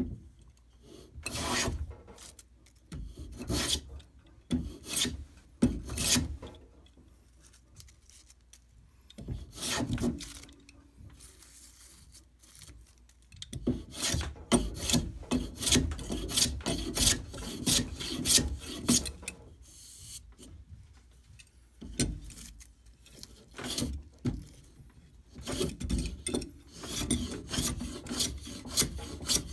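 Restored metal hand plane shaving thin wooden strips: repeated rasping push strokes come in runs with short pauses, quickening to a fast, even stroke rhythm in the second half.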